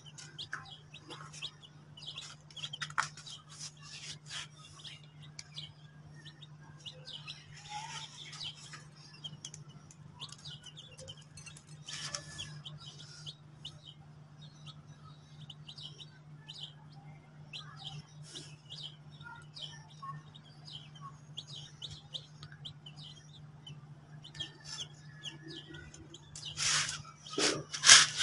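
Baby chicks peeping: many short, high-pitched chirps scattered throughout, growing louder and busier near the end, over a steady low hum.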